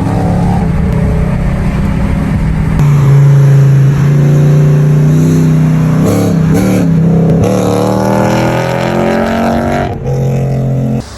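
Mercedes-Benz W124 E500's M113 V8 engine and exhaust running under load: the pitch falls at first, holds fairly steady with some wavering in the middle, then climbs as it revs up for a couple of seconds before dropping about ten seconds in. The sound cuts off abruptly near the end.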